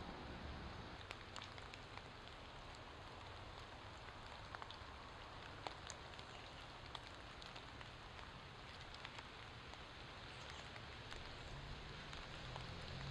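Light rain falling: a steady soft hiss with scattered, irregular ticks of single drops, picked up by homemade binaural earbud microphones.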